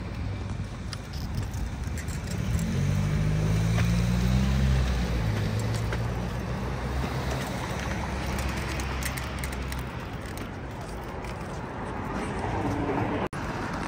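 Street traffic: a motor vehicle's engine running as it passes close by, loudest about three to five seconds in, over a steady low rumble of road noise that fades after about ten seconds.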